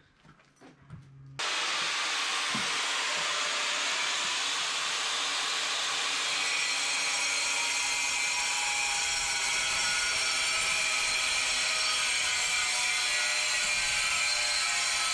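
An electric power tool switches on about a second and a half in and runs steadily without pause, a loud, even whir and hiss.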